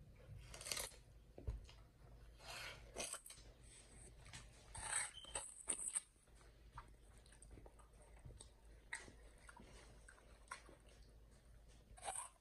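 Chimpanzee biting into and chewing a mini watermelon: a string of short crunches of flesh and rind, loudest in the first half, then softer chewing.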